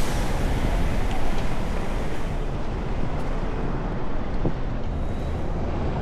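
City street traffic at an intersection: cars driving past in a steady rumble, with wind buffeting the microphone.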